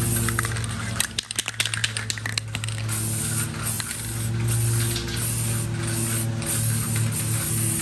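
Rust-Oleum aerosol spray paint can hissing as paint is sprayed onto a bumper. The hiss breaks off about a second in for a short run of quick rattling clicks, then carries on.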